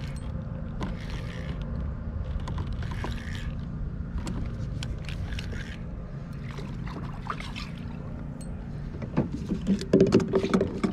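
Fishing reel being worked while a bass is fought from a kayak: faint scattered clicks and knocks over a steady low rumble. A burst of louder noise comes near the end.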